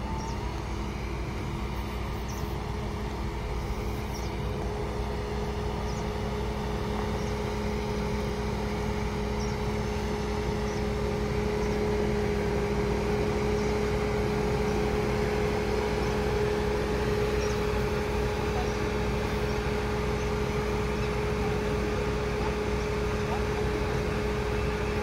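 Suzuki Jimny's 1.5-litre four-cylinder petrol engine running at a steady held throttle, a little louder from about halfway through, as the brake-based limited-slip system brakes the spinning wheels of the cross-axled SUV so it can crawl forward.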